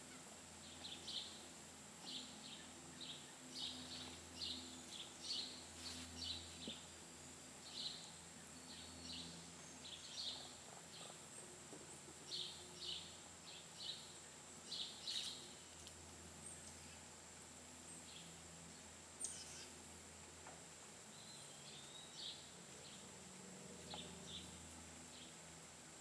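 Birds giving short, repeated chirping calls, several a second in clusters, over a steady high insect drone.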